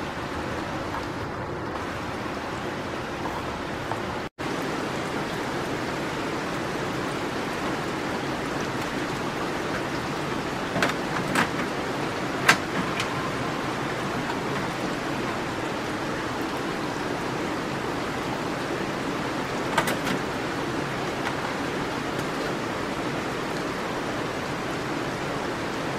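Steady hiss with a few sharp plastic clicks and knocks a little before halfway through, the loudest among them, as a VHD disc caddy is pushed into the slot of a National DP-330 VHD video disc player; one more click comes about three quarters of the way through.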